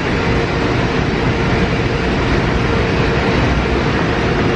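Steady loud rumbling noise with a constant hum running through it, without let-up.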